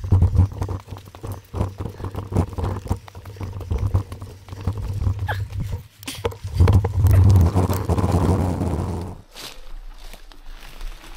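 Mountain bike rolling fast over a wet, leaf-covered forest trail: tyres crunching through leaves and the bike rattling over bumps in quick knocks, over a low rumble on the microphone. The rush grows loudest about two-thirds through, then drops off suddenly to lighter, scattered rattling near the end.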